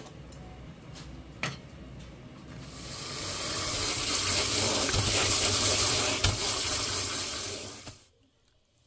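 Cold tap water running into a mesh strainer of cooked noodles as hands rub and rinse them. It starts about three seconds in and stops suddenly near the end. Before it comes a quieter stretch of the noodle pot boiling, with a sharp click.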